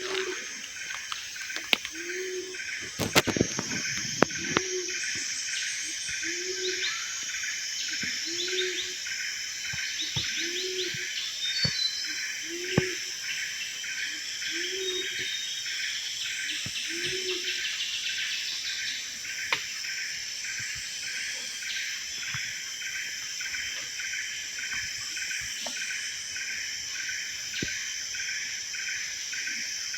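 Tropical rainforest ambience: a dense insect chorus pulsing steadily high in pitch, with a low hooting call repeated roughly once a second that stops about halfway through. A few sharp cracks come about three seconds in.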